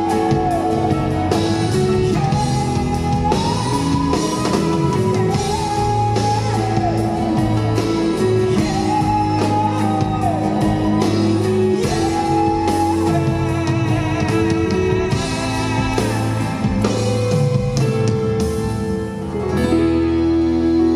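A male singer sings long held notes that fall away at their ends, over acoustic guitar, in a live performance. About halfway through the voice drops out and the guitar carries on with sustained chords, briefly dipping before a last chord near the end.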